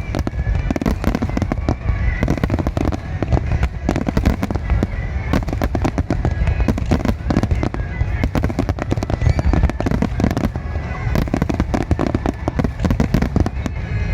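Musical starmine fireworks: a dense, continuous barrage of bursts and crackling shells with a deep rumble beneath, with the set's song playing faintly over loudspeakers.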